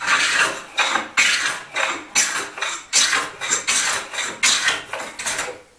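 Japanese hand plane pulled in quick repeated strokes along the edge of a walnut board, each stroke a short scraping shave, about two a second. The plane is taking a 45-degree edge back toward flat.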